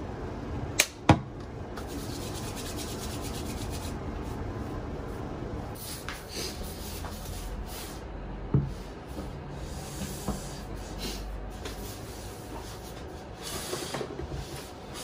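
Two sharp clicks about a second in. Later a glass of water is set down on a wooden table with a single low thump, followed by a smaller knock and light tableware handling over steady room noise.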